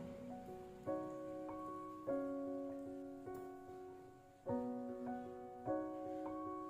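Background piano music: slow, soft chords struck about once every second or so, each left to ring and fade.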